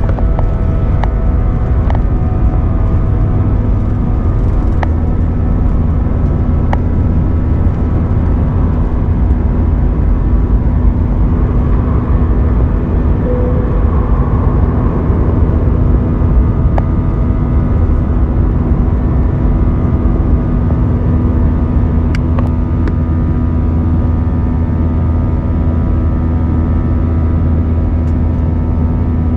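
Airbus A320-232's IAE V2500 turbofan engines running at high power during takeoff, heard inside the cabin as loud, steady engine noise with a constant low hum and a few faint clicks.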